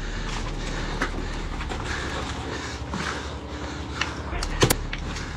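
Rustling gear and rubble shifting as a player moves and crouches on a debris-covered floor, with a few sharp clicks and a louder double click near the end.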